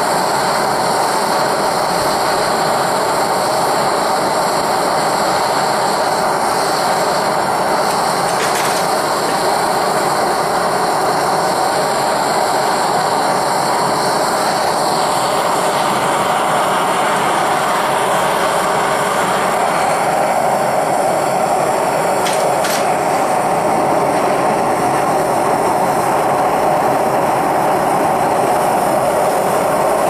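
Propane-fired melting furnace burner running, a steady rushing noise without let-up, with a couple of faint clicks about a third and three-quarters of the way through.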